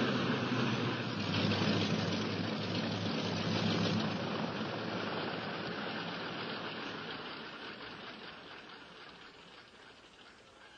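Piston engines of a twin-engine light propeller plane running as it rolls and taxis on the ground. The engine noise fades away steadily through the second half.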